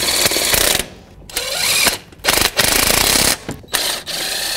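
Handheld electric power tool running in short bursts, about four in all, spinning the new serpentine belt tensioner's mounting bolts in until they bottom out.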